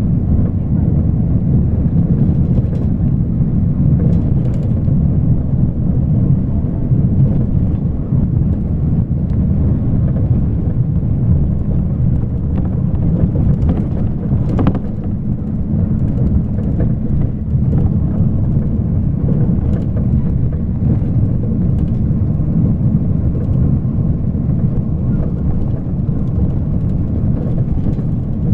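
Steady low rumble of a moving vehicle, road and wind noise, with one brief sharp click about halfway through.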